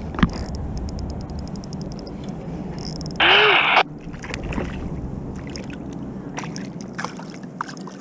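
A spinning reel ticking rapidly, about ten ticks a second for over a second, as a hooked fish is wound in to a kayak, then a short, loud splash about three seconds in as the fish breaks the surface.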